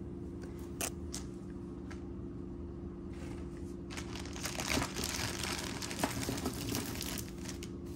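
Crinkling and rustling with scattered small clicks as bagged beaded jewelry is handled, busiest from about three seconds in until near the end. A steady low hum runs underneath.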